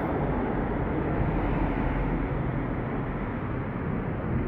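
Steady rumble of city traffic.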